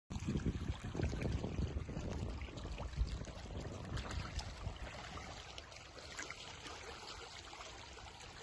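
Outdoor ambience: a steady rushing noise with low rumbling that is heavier for the first four seconds or so, then eases.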